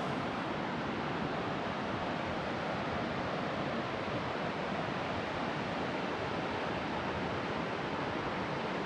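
Steady rushing of running water: an even hiss at constant level with no breaks or changes.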